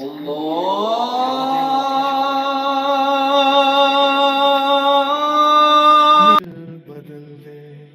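Background music: a single long sung note that slides up in pitch over the first second and is then held with a slight waver, cut off abruptly about six seconds in. Quieter, low chant-like music follows.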